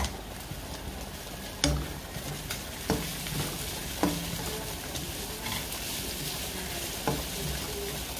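Meat and sliced onions sizzling in a non-stick wok while a spatula stirs them, with a steady frying hiss and several sharp knocks as the spatula strikes the pan.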